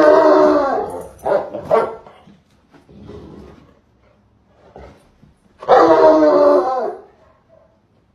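A dog barking in drawn-out calls: a long one at the start, two short ones right after, and another long call about six seconds in.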